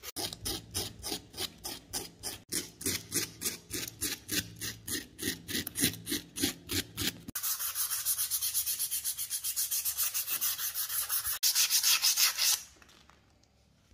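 Hand-scrubbing the steel slide of an Astra 4000 Falcon pistol with an abrasive to strip rust, a dry rasping scrape in even back-and-forth strokes about three to four a second. About halfway through, the strokes turn faster and denser, then stop abruptly near the end.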